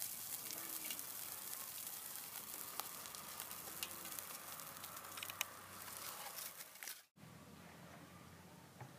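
Wood fire crackling under a steel pan, with a steady sizzling hiss from the hot liquid in the pan and many small irregular snaps. About seven seconds in it cuts off abruptly, leaving a fainter steady hiss.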